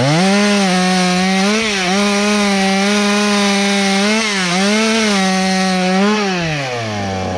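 Small two-stroke chainsaw running on methanol, revved to full throttle and cutting wood, its pitch dipping briefly a few times under load without leaning out. It drops back to idle near the end.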